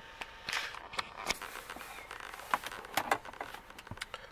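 Scattered clicks and rustles of handling, with button presses on a handheld Foxwell NT630 diagnostic scan tool.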